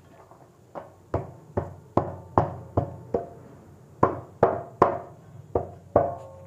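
Metal pestle pounding a stiff besan dough in a stainless steel plate: a steady series of sharp knocks, about two or three a second with a brief pause midway, each with a short metallic ring from the plate. The dough is being pounded to make it smooth and pliable for rolling thin papdi.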